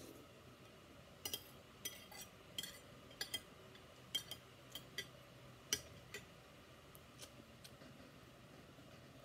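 Metal spoon and fork clinking and scraping against a ceramic plate. A quick, uneven run of sharp clinks fills the first six seconds, then only a couple of fainter ones follow.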